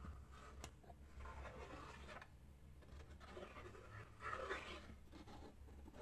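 Faint rustling and scraping of hands working a cardboard piece while glue is spread along its edges, in two short stretches over a low steady hum.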